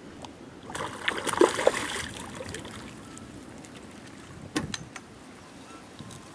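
Water splashing for about a second as a hooked small pacu is brought to the surface and into a landing net, followed a few seconds later by a couple of sharp knocks.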